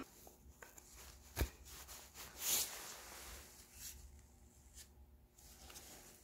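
Quiet handling of wooden strips and a small metal pin on a workbench: a sharp click about a second and a half in, a short rubbing sound about a second later, then faint small taps and rustles.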